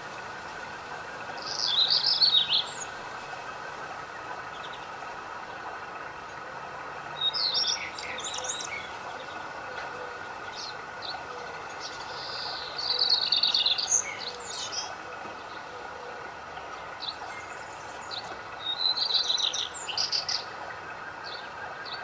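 Birds chirping in four bursts of quick high notes, one about every five or six seconds, with a few single notes between, over a steady background hum.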